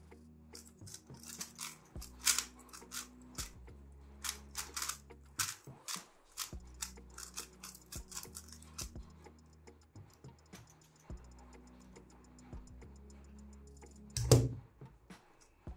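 Dry, unlubricated MoYu WeiLong WR M 2021 magnetic 3x3 speedcube being turned fast in a solve: quick runs of plastic clicks from its layers, then a thump about fourteen seconds in. Background music plays underneath.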